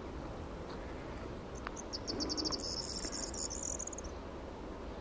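A small animal's high, rapid chirping trill, about ten chirps a second, starts a little under two seconds in and lasts about two seconds. It sits over a steady low rumble.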